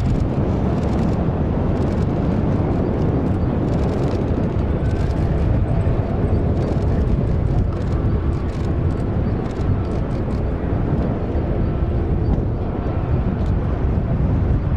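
The three General Electric CF6-50 turbofans of an MD-10-30F trijet taxiing, heard from a distance as a steady rumble with a faint thin whine over it.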